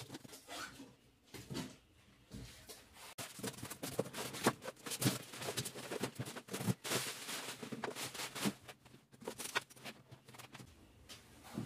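Unpacking noises: cardboard flaps, polystyrene packing blocks and the clear plastic bag around a MIG welder rustling and crinkling, with irregular light knocks. The plastic rustling is densest through the middle.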